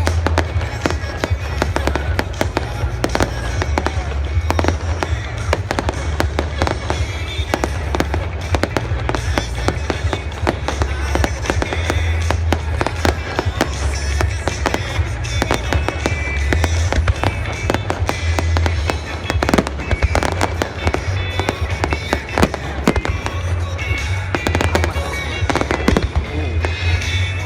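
A dense, continuous barrage of fireworks bursts, many explosions a second with crackling reports, heard over music played through loudspeakers.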